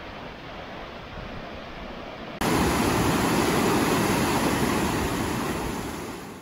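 Rushing white water of river rapids, a steady wash of noise. It jumps louder about two and a half seconds in and fades away near the end.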